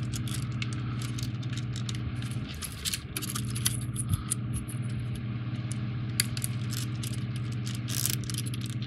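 Small clicks and light scraping as 3D puzzle pieces are handled and pushed into place on a model ship's mast. A steady low hum from an unseen machine runs underneath.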